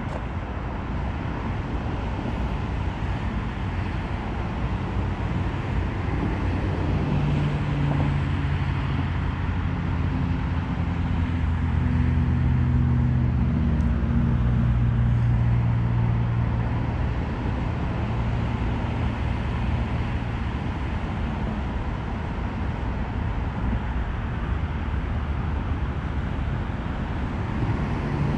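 Steady road traffic noise from a busy parkway. A heavier vehicle's low engine hum swells in the middle and fades away.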